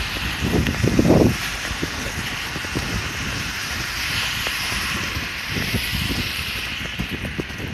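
Wind gusting on the microphone, loudest about a second in, over a steady hiss of traffic on wet roads, with light footsteps on a wet paved path.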